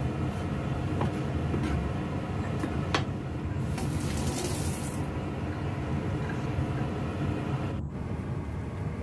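A steady low hum fills the kitchen, with a few light knife taps on a wooden cutting board as tomatoes are sliced. A brief hiss comes in about three and a half seconds in and lasts about a second and a half.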